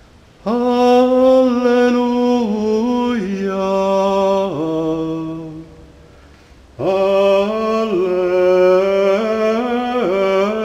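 A solo male voice singing Gregorian chant in long held notes that step and slide between pitches. There are two phrases: the first stops about five and a half seconds in, and the second begins about a second later.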